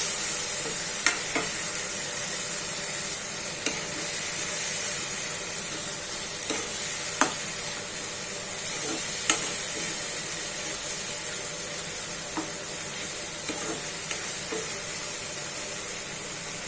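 Canned tuna and spice paste sizzling as it fries in a pan while being stirred, with an occasional sharp click of the stirring utensil against the pan.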